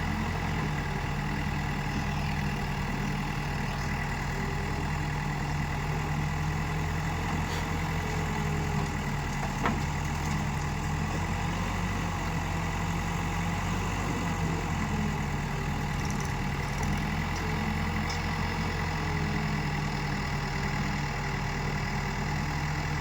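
Diesel engine of heavy machinery, a backhoe loader or tractor, running steadily at low revs, with one short click about ten seconds in.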